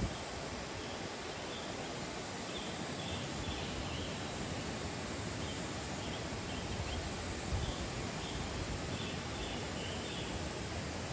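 River water rushing steadily, with faint high chirps coming in short clusters a couple of times.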